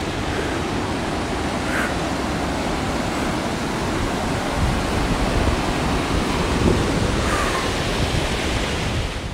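Fast, high creek running over boulders in whitewater rapids: a loud, steady rush of water.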